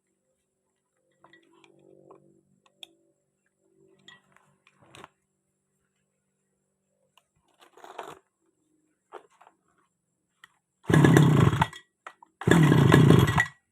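Grass cutter's small engine started by hand and running briefly twice near the end, each time for about a second, after faint clicks and handling noises.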